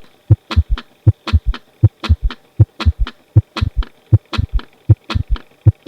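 Recorded third heart sound (S3) of left ventricular failure. A steady triple rhythm of a little under 80 beats a minute: each beat is a lub, a dub, and a third low thud close after the dub, the ventricular gallop.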